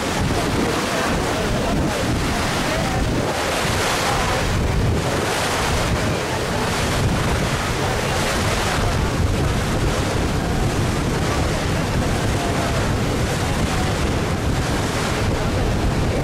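Steady wind buffeting the microphone over the rush of water along a moving boat, swelling and easing without a break.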